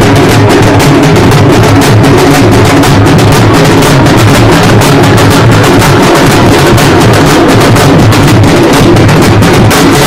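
Halagi frame drums beaten hard and fast in a continuous, unbroken rhythm of rapid strokes, very loud.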